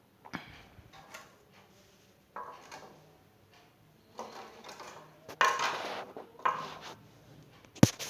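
Plastic fridge shelf trays being handled, making a series of irregular knocks and clatters. The loudest is a sharp knock near the end.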